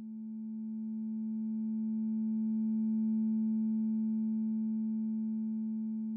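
Synthesized sine-tone drone from a Sonic Pi data sonification of the chloride levels in Portuguese red wines. One low tone is strongest, with a few faint higher tones above it. It swells in over the first three seconds and then slowly fades.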